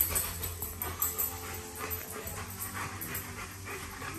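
A German Shepherd-type detection dog searching a room, sniffing and panting, with short ticks of its claws on a tile floor.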